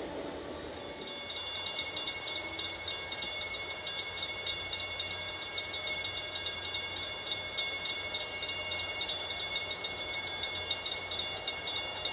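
Railroad crossing warning bell ringing in quick, even, repeated strikes, starting about a second in.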